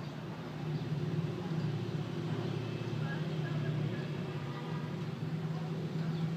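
Steady low rumble of road traffic, with no sudden sounds.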